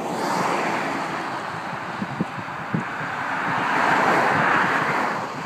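Road traffic passing: tyre and engine noise swells and fades, once near the start and again, louder, about four seconds in.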